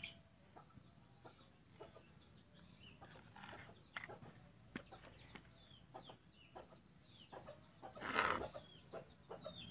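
Faint, repeated short high chirps from birds, each falling quickly in pitch, with scattered clicks and a louder rustling burst about eight seconds in.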